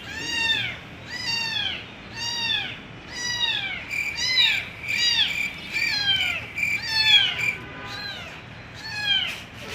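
A cat meowing over and over, about eleven short meows each rising then falling in pitch, roughly one a second. A steady high note runs under the meows from about four seconds in until past seven.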